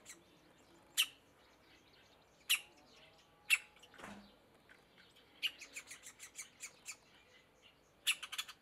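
Middle spotted woodpecker nestling calling from its nest hole with short, sharp, high calls. There are a few single calls a second or so apart, then a quick run of about eight calls near the middle, and a fast cluster near the end.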